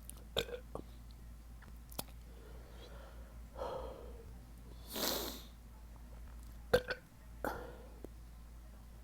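A man burping: a few short, small burps with mouth clicks between them, brought on by drinking carbonated Four Loco. The loudest is a noisy rush of air about five seconds in.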